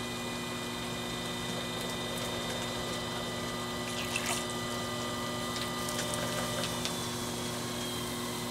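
Skutt Prodigy electric potter's wheel running with a steady hum and several high whining tones. A few short wet squishes about four and six seconds in come from hands and a sponge pressing the spinning wet porcelain.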